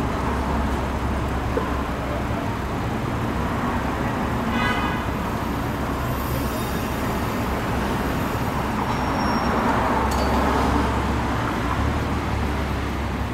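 Steady street traffic: the rumble and tyre noise of passing cars, swelling as one goes by about ten seconds in. A brief pitched sound cuts through about four and a half seconds in.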